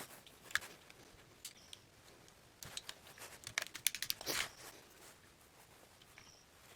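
Small sharp clicks and short rustles of parts being handled, thickest in the middle: the router's switch and housing pieces being fitted back together by hand.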